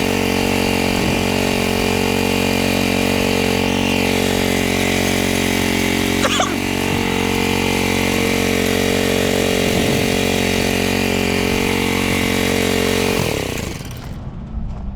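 Small petrol engine of a concrete power trowel running steadily at a constant speed, working the slab's surface during finishing. It cuts off about thirteen seconds in.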